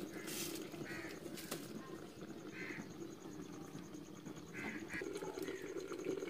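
A few short bird calls over a steady low background. The calls are spaced a second or two apart, and the last two come in quick succession.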